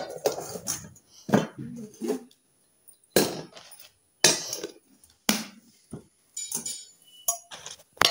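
Metal tiffin (lunch box) containers clinking and knocking together as they are handled, a string of sharp knocks about a second apart, with softer handling noise between them.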